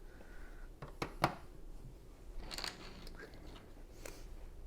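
Lego pieces handled by hand: two sharp plastic clicks about a second in, then a short rustle of pieces.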